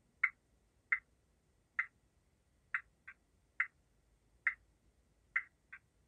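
Light, sharp clicks at uneven intervals, roughly one a second with a few in quick pairs, from the sound-fitted Bachmann class 08 shunter model standing still.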